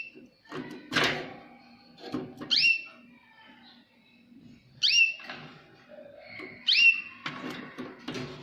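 Jaspe canary giving short, sharp chirps, each a quick falling note, repeated about every two seconds. Two sharp knocks, one about a second in and one near the end.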